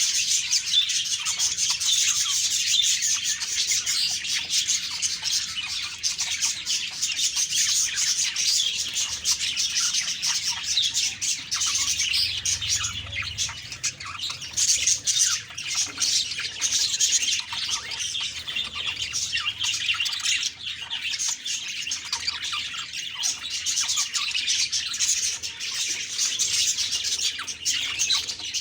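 Budgerigars chirping and warbling continuously, a dense flock chatter of quick high chirps.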